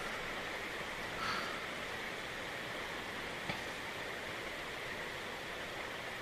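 Steady rain, an even hiss with no breaks, with one sharp tick about three and a half seconds in.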